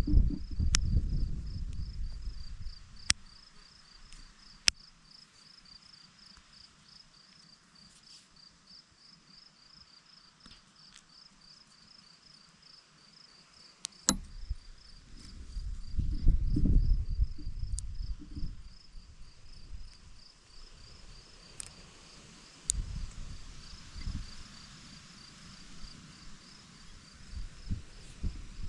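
An insect chirps in a high, even, rapid pulse throughout. Low rumbling handling noise and a few sharp clicks come over it, the handling loudest about halfway through.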